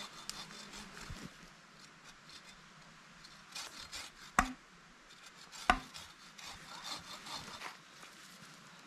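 Short rasping strokes of a bow saw and wood rubbing on a wooden pole, with two sharp wooden knocks about a second apart near the middle.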